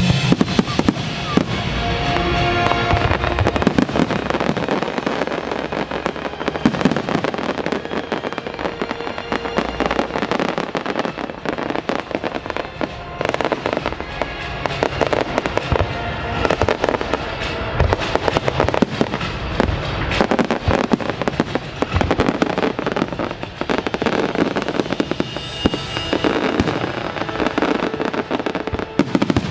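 Aerial fireworks bursting in quick succession throughout, a dense run of sharp bangs and crackles, over the music that accompanies the pyromusical show.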